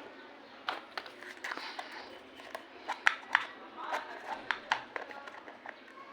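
Small plastic toy pieces and packaging being handled: scattered light clicks and taps over crinkling, with two sharper clicks about three seconds in.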